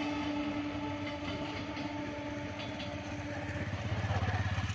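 EMU electric suburban train running past: a steady rumble of wheels on rails with a humming tone that stops about three and a half seconds in, then a louder low rumble near the end as the last coach goes by.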